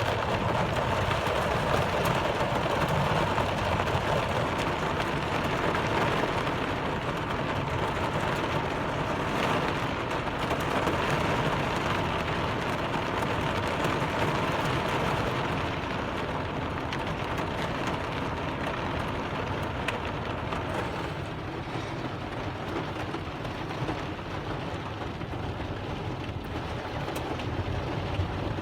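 Heavy rain pouring down steadily as an even rushing hiss, easing slightly in the second half.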